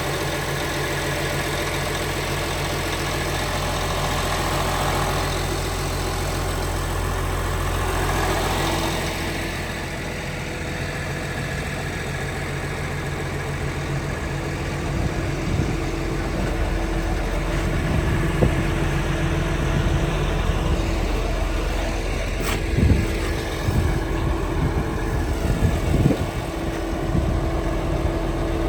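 Liebherr PR756 crawler dozer's diesel engine running steadily. Its note drops about nine seconds in, and from halfway on there are scattered sharp knocks and clanks.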